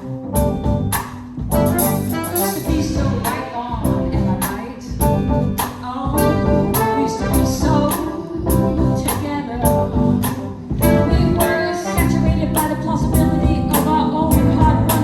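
A live band playing an upbeat song with a steady drum beat, with singing and brass.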